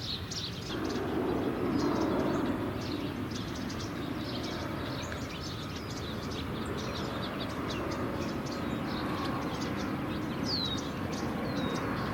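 Outdoor ambience: many short bird chirps over a steady low rumble, which comes in just under a second in.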